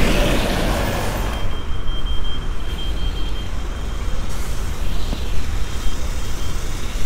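A bus passes close by on the wet road, its engine and tyre hiss fading over the first second or so. Then a high, thin electronic beep sounds steadily for a few seconds and breaks into short beeps, over a low traffic rumble.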